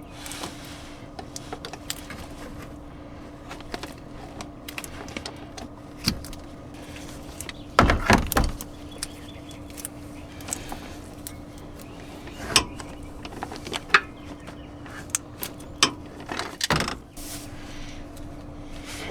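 Scattered clicks and metallic clanks of tools and parts being handled during car maintenance, with a loud clatter about eight seconds in and single knocks later, over a steady low hum.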